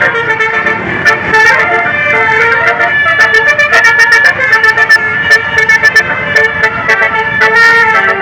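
Bus telolet horn, a set of musical air-horn trumpets, playing a quick tune of changing multi-tone notes.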